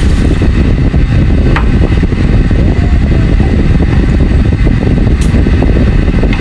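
A loud, steady, low rumbling noise like a running fan, with a couple of faint short clicks.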